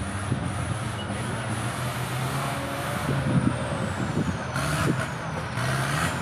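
Engine of an off-road competition 4x4 pickup running under load over a dirt course, its revs rising and falling.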